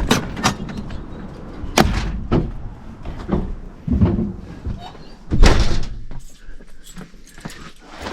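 A door shutting, among a series of sharp knocks and thumps; the heaviest thump comes about five and a half seconds in.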